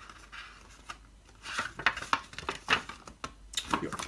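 Paper pages of an instruction booklet being leafed through and handled: a series of short, crisp rustles and flicks, most of them in the second half.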